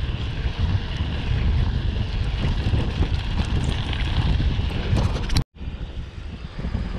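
Mountain bike ride noise: a loud, steady rumble of wind buffeting the microphone and tyres running over a dirt trail, with a few clicks and rattles. It cuts out completely for a moment about five and a half seconds in, then carries on.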